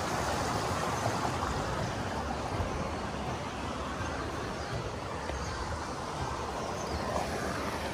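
Steady rush of a shallow river running over rocks, easing slightly toward the end.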